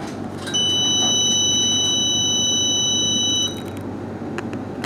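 Electronic warning tone on a CAF Urbos 3 tram standing at a stop: one steady, high buzzer-like tone starting about half a second in, held for about three seconds, then cutting off suddenly over the low hum of the tram.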